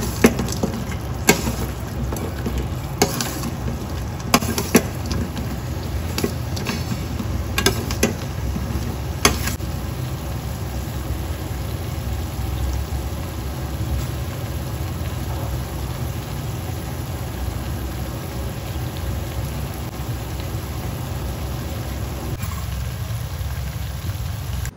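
Pieces of fried pork being stirred through a thick sauce in a frying pan with a slotted spatula, sizzling over a steady low hum. The spatula knocks and scrapes against the pan several times in the first ten seconds, then the stirring stops and only the sizzle and hum remain.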